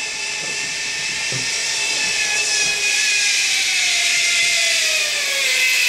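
Zipline trolley running along the steel cable as a rider comes in, a steady whine of several tones that grows louder while its pitch slowly falls.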